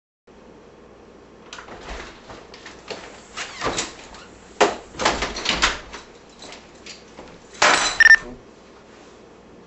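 A house door opening and shutting, with footsteps and scuffs across a kitchen floor, then a short, loud jingling clatter near the end as keys are put down on the kitchen counter.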